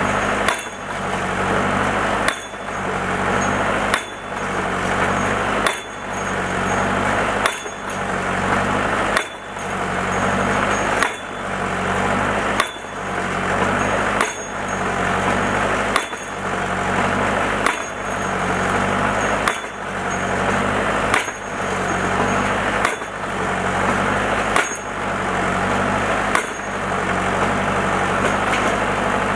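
Homemade falling-anvil post driver, a sand-filled pipe weight of about 350–400 lb, dropping again and again onto a post. It strikes sixteen times at an even pace, about one blow every 1.7 seconds, and stops a few seconds before the end. Under the blows the engine powering its hydraulics runs steadily.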